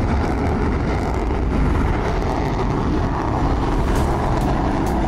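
Dassault Rafale fighter jet on its takeoff roll, its twin turbofan engines heard from across the airfield as a loud, steady rushing rumble, with a few sharp clicks near the end.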